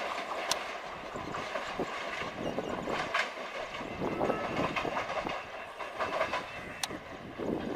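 Passenger train coaches rolling away on the rails, the wheels clattering steadily over joints and points, with a few sharp metallic clicks.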